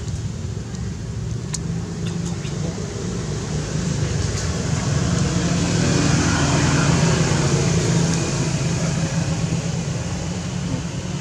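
Steady low rumble of background noise, swelling about halfway through and easing off near the end, with a few faint clicks.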